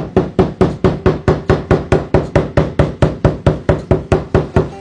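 Rapid, even knocking of blows on timber, about five a second, as a kamachi threshold beam is tapped home into its thin mortise and tenon joint.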